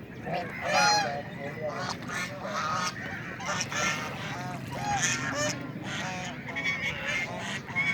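A flock of white domestic ducks quacking, many short calls overlapping one another, the loudest about a second in.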